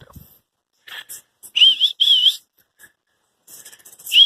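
A person whistling to call dogs: two short warbling whistles about a second and a half in, then another pair starting right at the end.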